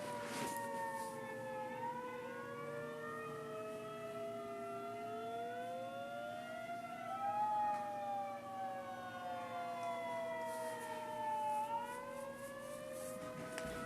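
Outdoor tornado warning siren sounding during a scheduled test. It gives a slow wail, with several tones gliding down and back up over several seconds and some rising while others fall.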